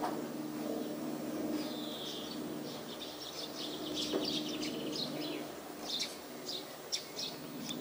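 Birds chirping: a brief whistled note about two seconds in, then many short, high chirps in quick runs, over a steady low hum.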